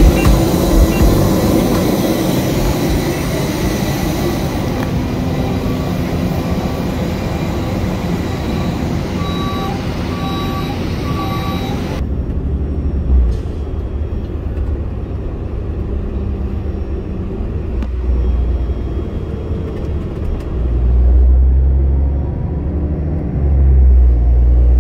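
Steady jet noise on an airport apron, with a few short beeps about ten seconds in. Then, after an abrupt cut about halfway, the low engine and road rumble of an apron shuttle bus driving, swelling near the end.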